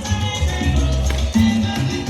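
Upbeat Latin dance music with a heavy bass line and steady percussion.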